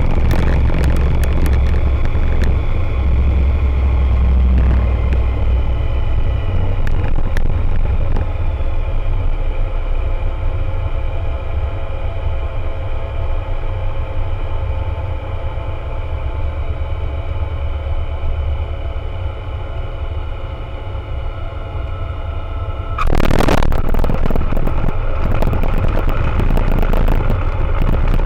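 Cockpit sound of an Aeroprakt A22LS Foxbat's Rotax 912 ULS four-cylinder engine and propeller running steadily on landing approach, easing slightly quieter as power comes back. About 23 seconds in it turns suddenly louder and rougher as the wheels touch down and roll on the runway.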